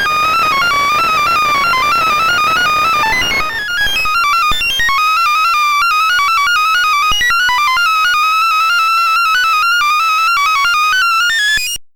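Sorting-algorithm sonification from The Sound of Sorting: a rapid stream of short synthesized beeps jumping up and down in pitch, each beep sounding the value of an array element as the algorithm compares and moves it. The beeps get clickier after about four seconds and cut off suddenly near the end as the sort finishes.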